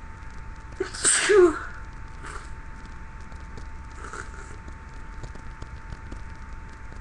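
A person sneezes once, loudly and briefly, about a second in. Two faint breathy sounds follow, at about two and four seconds.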